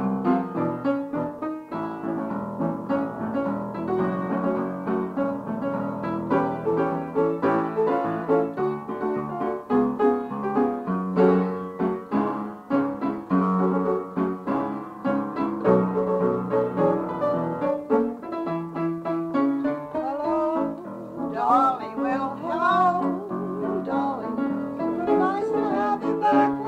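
Piano playing an old popular tune as a melody over chords, from a home tape recording. For the last several seconds a singing voice with a wide vibrato joins in.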